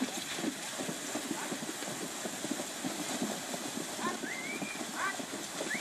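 Pair of horses pulling a marathon carriage through a water obstacle: hooves thudding on wet ground and splashing into the water, over a steady rush of noise. From about four seconds in, a series of short, high, rising calls repeats several times.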